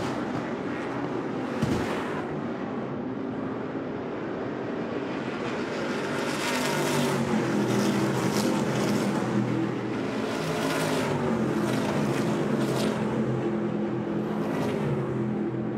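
Several Stadium Super Trucks' V8 engines racing at speed, their notes rising and falling as the trucks come past. A sharp thump sounds about two seconds in.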